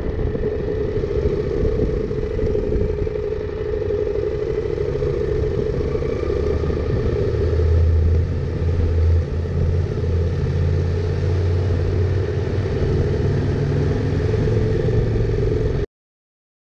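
KTM 890 Adventure R's parallel-twin engine running steadily while the motorcycle is ridden; the sound cuts off suddenly near the end.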